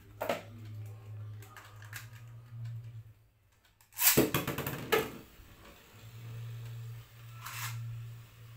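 A Beyblade Burst top launched into a plastic stadium. About four seconds in, the launcher's ripcord is pulled with a loud rasping zip that ends in a click. A steady low hum runs under it, dropping out just before the launch.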